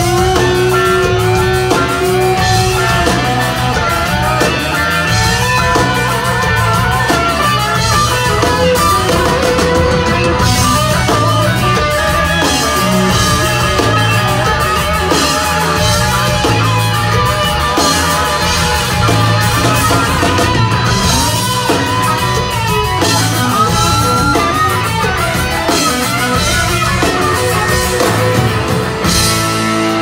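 Live rock band playing an instrumental stretch with no vocals: electric guitars over bass guitar and drum kit, with a lead guitar line bending in pitch.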